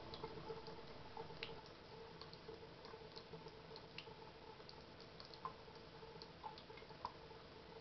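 Faint wet squishing and scattered small clicks of a soapy makeup blending brush worked in circles on a wet palm, over a thin trickle of tap water.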